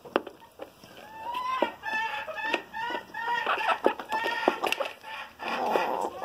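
A flock of hens clucking as they feed: a quick run of short calls from about a second in, with sharp taps in between and a harsher burst near the end.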